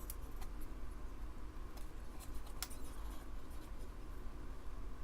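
Faint, irregular small clicks and scrapes of a desoldering tool's tip working on a circuit board's solder joints, the sharpest about two and a half seconds in, over a steady low hum.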